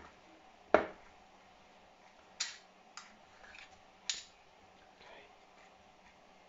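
Metal tablespoons clinking and scraping against each other as muffin batter is scooped and pushed into paper cups. One sharp clink comes just under a second in and is the loudest. Three or four lighter clicks follow over the next few seconds.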